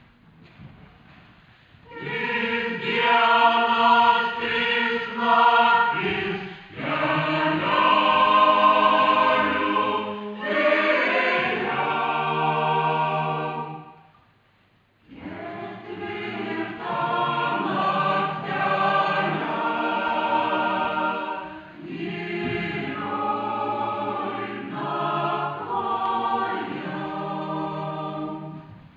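Mixed choir of men's and women's voices singing, starting about two seconds in, with a brief pause about halfway through before the singing resumes.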